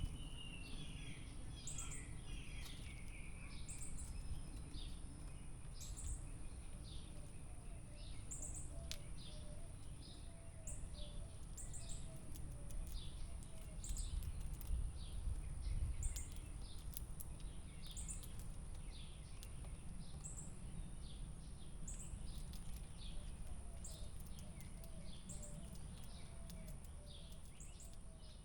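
Several small birds chirping outdoors: many short, high chirps repeating throughout, with a quick falling run of chirps in the first couple of seconds. Under them is a low background rumble and a steady high-pitched tone.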